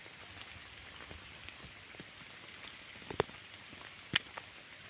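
Water drops falling on wet leaves and forest litter after rain, a soft steady hiss with scattered light ticks. Two sharper ticks stand out about three and four seconds in.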